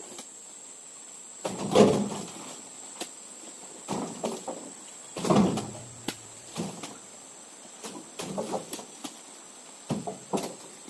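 Heavy oil palm fruit bunches thudding one after another into a pickup truck's bed as they are loaded by hand, a dull thump every one to two seconds with a few lighter knocks between.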